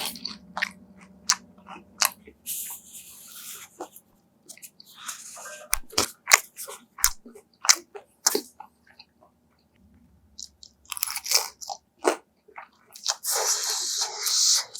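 Crisp fried dumplings being bitten and chewed close to the microphone: loud crunching of the fried wrapper, a cluster of sharp crackles at a time, with a brief pause about two-thirds of the way through.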